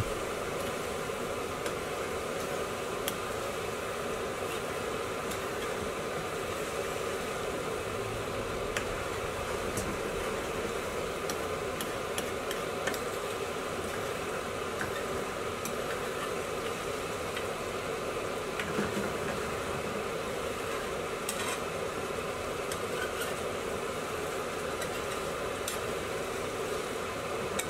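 Curry sauce sizzling steadily in a frying pan over a medium-high gas flame while a spoon stirs and scrapes through it, with an occasional light tap of the spoon on the pan.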